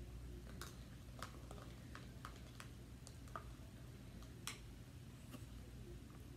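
Faint, irregular clicks and taps of a spoon against a clear plastic tub while stirring thick soap slime, over a low steady room hum.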